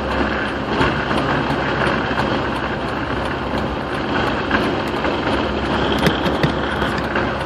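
Steady road and engine noise inside a moving vehicle's cabin on the highway: an even rumble and tyre hiss.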